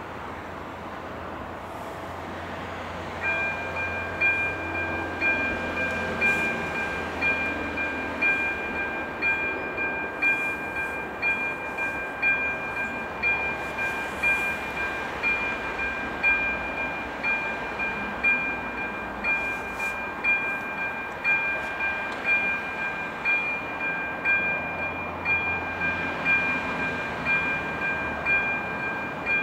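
AŽD 97 level-crossing warning signal's electronic bell starting about three seconds in and then ringing steadily, a two-tone chime about once a second: the crossing has been activated for an approaching train.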